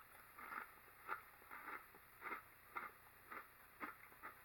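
Faint, regular crunching of a person chewing a kettle-cooked potato chip, about two crunches a second.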